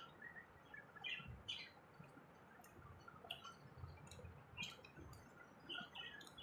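Faint eating sounds: soft chewing with scattered short mouth clicks and light thuds at irregular intervals.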